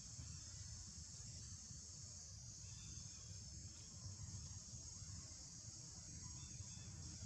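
Faint, steady high-pitched drone of insects, over a low rumble, with a few faint chirps.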